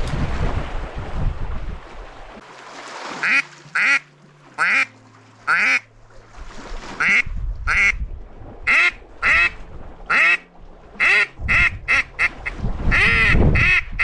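Zink mallard duck call blown in a series of short, nasal hen-mallard quacks to draw passing ducks to the decoys: four spaced quacks from about three seconds in, then a quicker run of a dozen or so. A low rumble of wind noise runs under the start and the end.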